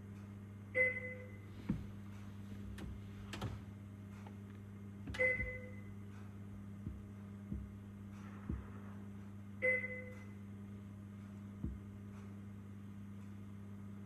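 NICU equipment sounds: a short electronic chime repeats about every four and a half seconds over a steady low hum, with a few soft knocks between the chimes.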